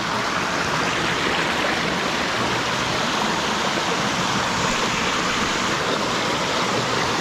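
Steady, even rush of a rain-swollen stream close to a waterfall.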